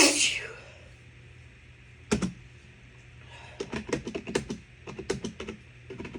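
The end of a loud sneeze, then a single sharp click about two seconds in, followed by a quick run of light clicks over about two seconds.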